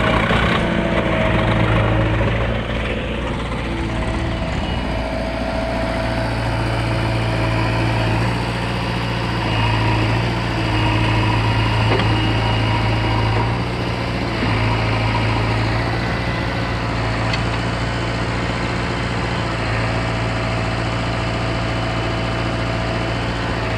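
Heavy diesel machinery running steadily, its engine hum swelling and easing every few seconds.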